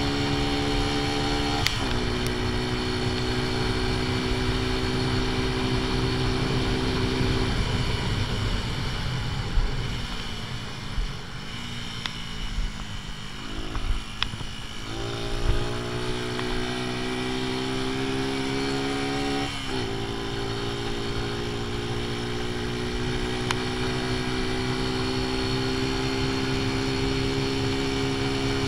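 AJS Tempest Scrambler's 125 cc single-cylinder engine running at half-advanced ignition timing, heard on board with wind rush. There is an upshift a couple of seconds in. Then the throttle closes and the note sinks as the bike slows for a bend. Around halfway it picks up again, with another upshift, and the note rises slowly under load.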